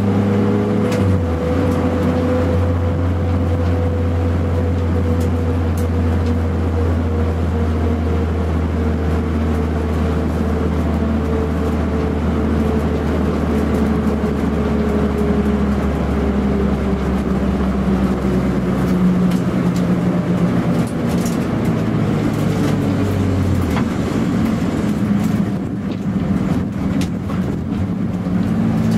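Toyota Starlet EP82 GT Turbo's 1.3-litre turbocharged four-cylinder engine running hard under way on track, heard from inside the cabin, its note slowly falling over the first half and shifting again about two-thirds through.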